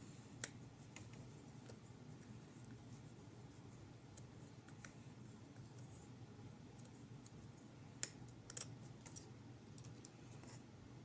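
Near silence with a few faint, sparse clicks of a small knife tip working a screw loose: one about half a second in and a few more around eight seconds in.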